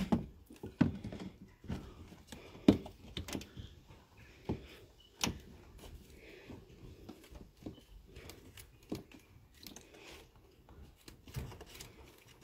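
Screwdriver prying and working at a stubborn retaining clip beside a car radiator: scattered, irregular clicks and knocks, the loudest in the first three seconds.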